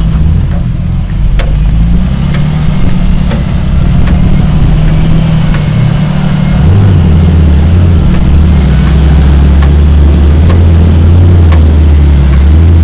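Lifted off-road Jeep's engine running under load as it crawls through mud, its note dropping lower and getting heavier and louder about halfway through. A few sharp clicks are scattered through.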